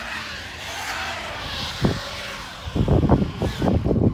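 Traxxas MAXX RC monster truck's brushless electric motor whining, rising and falling in pitch as the truck is driven hard across concrete. There is one short low thump about two seconds in, then a run of loud low thumps and rumbling in the last second and a half.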